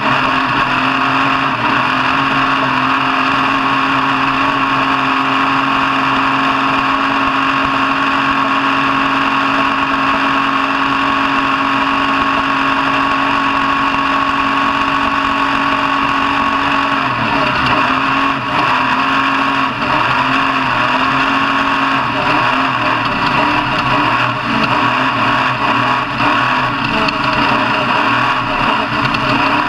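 Vehicle engine running loud at steady high revs, its pitch wavering and unsettled from a little past the middle.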